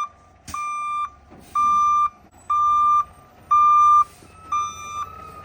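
Concrete pump truck's reversing alarm beeping, one high-pitched beep about every second, over a faint low engine rumble as the truck backs up.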